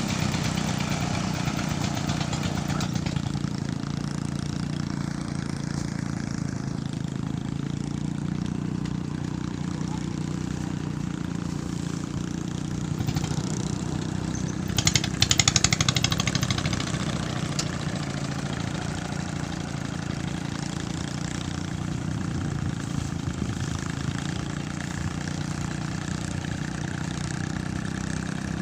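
Small engine-powered rice threshing machine running steadily. About fifteen seconds in there is a louder burst of rapid clatter lasting a second or two.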